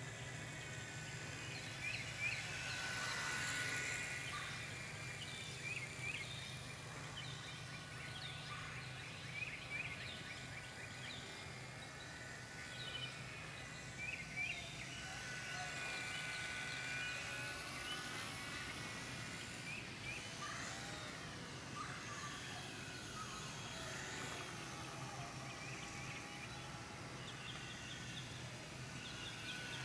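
Faint whine of a small RC plane's motor, rising and falling in pitch as the plane flies around, over a steady low hum, with many short high chirps from birds.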